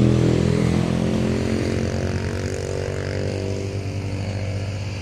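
A motor vehicle's engine running steadily and slowly fading away.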